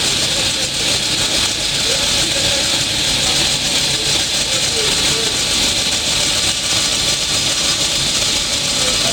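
Table saw running with its blade spinning, a steady, even whir that does not change or pause.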